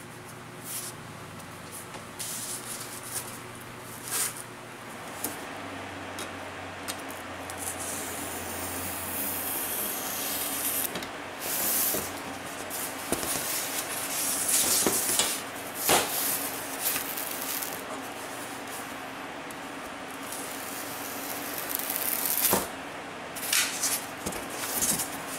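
Hands handling pink foam insulation board: a pencil scratching a line on it, then the board and a large square sliding, rubbing and knocking on a cutting mat, heard as scattered scrapes and clicks. A low hum runs under roughly the first ten seconds.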